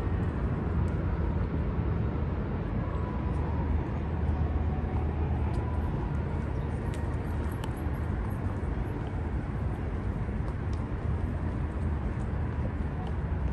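Steady outdoor city ambience: a low, even rumble of traffic, with a few faint ticks.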